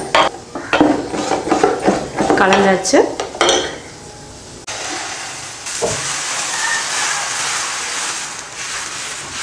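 Ladle stirring dosa batter in a steel pot, scraping and clinking against the sides. About halfway through, a steady sizzle as batter spreads on a hot tawa, with a single knock of the ladle.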